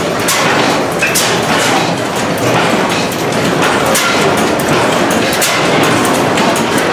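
Many antique stationary gas engines running together: a loud, dense clatter of overlapping pops and mechanical clicks, with no single steady rhythm.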